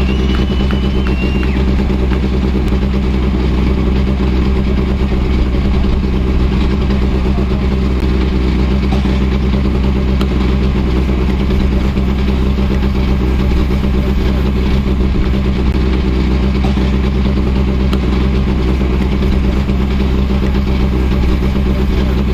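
An engine idling steadily at a constant pitch, with no revving.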